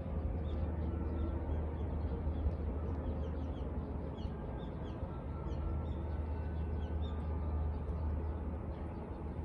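Small birds chirping in short, high calls again and again over a steady low rumble.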